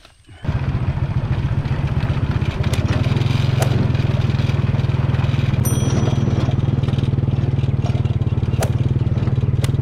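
Small motorcycle engine running steadily under way, starting abruptly about half a second in, with a few sharp clicks over it.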